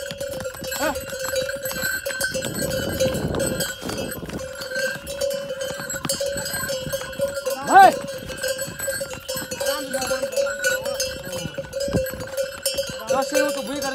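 Harness bells on a string of pack ponies ringing and clinking steadily as the animals walk. About eight seconds in there is one short loud call from a person.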